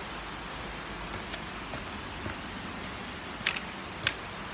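Steady outdoor background hiss, with a few faint ticks and two sharper clicks near the end.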